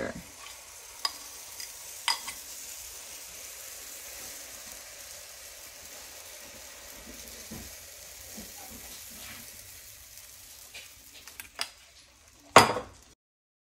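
Flourless protein pancake batter sizzling in a hot nonstick frying pan, a steady faint hiss, while a fork scrapes the batter out of a bowl with a few light clinks. A louder knock comes near the end.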